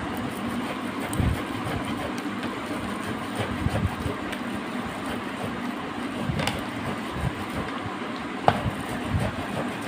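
Fibrous ripe palm fruit rubbed back and forth over a metal grater into a steel bowl, a steady scraping that works out the pulp as purée, with a few sharper clicks in the second half.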